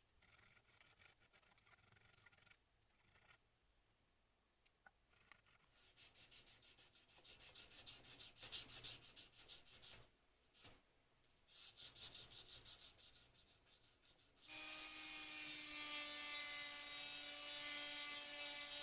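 A fret file rubbing back and forth over guitar frets in quick, rhythmic strokes, about four or five a second, with a short break midway: frets being recrowned. Near the end a power tool's electric motor starts and runs steadily with a high whine, for polishing the frets.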